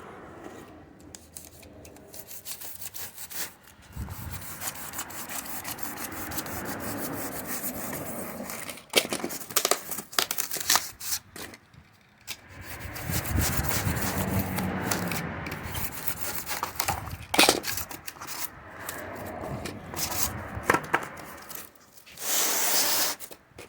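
A hand cutter cutting out a circle, with irregular scraping and rubbing strokes and scattered sharp clicks. There is a short, louder scrape near the end.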